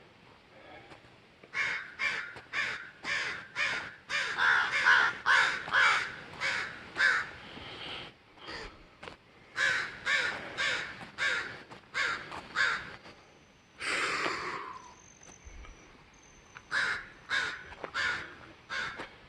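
Crows cawing: long runs of short, harsh caws, about three a second, with a pause in the middle, one longer drawn-out call about two-thirds of the way through, and a last run near the end.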